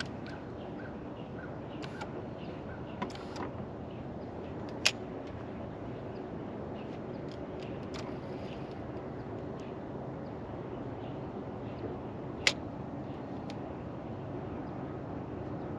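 Bow-mounted electric trolling motor running with a steady low hum. Two sharp clicks stand out, about five seconds in and again past twelve seconds.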